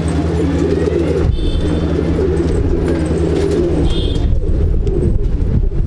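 Many domestic pigeons in a loft of Andhra high-flying pigeons cooing together in a dense, steady chorus.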